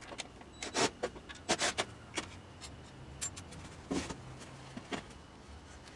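Wooden boards and fence pieces being handled on a table saw's steel top: irregular light knocks and clicks with some rubbing as the wood is picked up, slid and set down.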